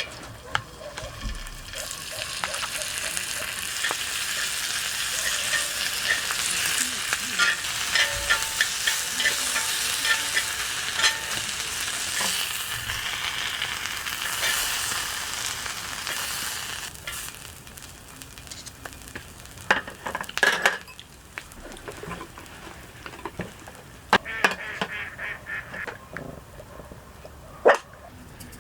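Food frying in a pan, a steady sizzle with many small crackles and pops, loudest in the first half and dying down after about 17 seconds. A few sharp clacks follow near the end.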